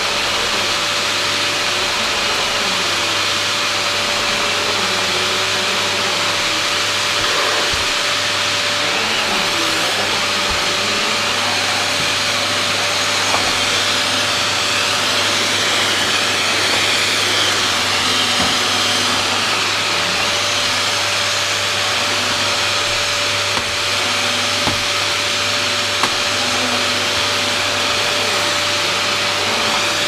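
Maytag Satellite vacuum cleaner running steadily while vacuuming: a constant whine with a steady hum, its tone shifting slightly as the tool is worked, and a few light knocks.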